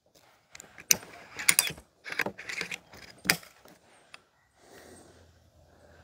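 Karma SLS .22 PCP air rifle's side lever being cycled between shots: a run of metallic clicks and clacks, the loudest four spread over about three seconds, as the lever cocks the action and the magazine indexes the next pellet.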